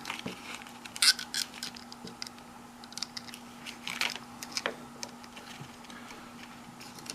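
Small irregular metallic clicks and scrapes as a bolt and nut are tightened down by hand, holding a metal pick onto an electric toothbrush head.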